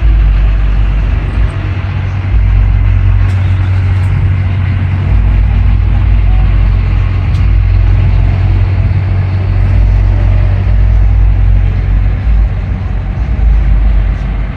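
A diesel truck engine running loudly close by, a steady heavy rumble with no horn blast.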